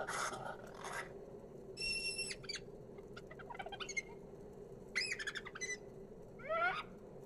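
Dubbed-in dinosaur call sound effects: a brief hiss at the start, then a run of short, high-pitched, bird-like chirps and squawks, some arching in pitch and one rising near the end, over a faint steady background.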